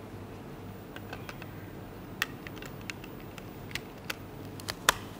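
Hard plastic ClicBot robot modules being handled and fitted together: scattered light clicks and taps, the sharpest one near the end.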